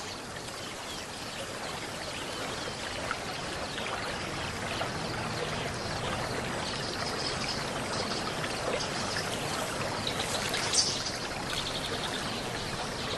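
Running river water, a steady even wash of noise.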